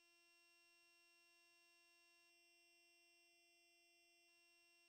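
Near silence, with only a faint steady hum of several thin fixed tones.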